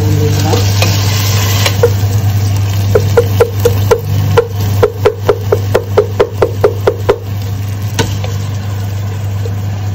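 Wooden spoon stirring vegetables in a stainless steel pot, knocking against the pot in a quick run of taps, about four a second, through the middle of the stretch. A steady low hum runs underneath.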